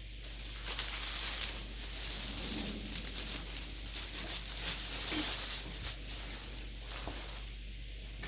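Irregular rustling and crinkling of paper being handled, with small clicks: the chair's assembly instruction sheets being looked through.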